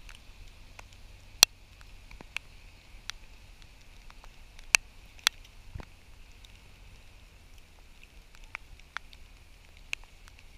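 Irregular sharp ticks of raindrops striking close to the microphone, a few much louder ones about a second and a half, nearly five and five and a half seconds in, over a faint steady hiss.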